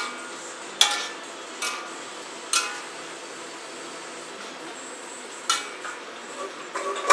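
Metal spatula clanking and scraping against a wok while noodles are stir-fried: a handful of sharp clinks at irregular intervals over a steady hiss.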